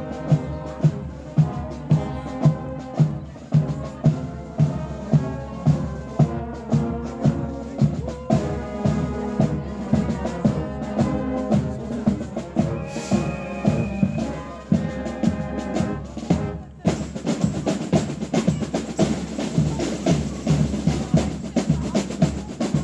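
Marching band playing a march, with bass and snare drums keeping a steady beat under brass instruments including a sousaphone.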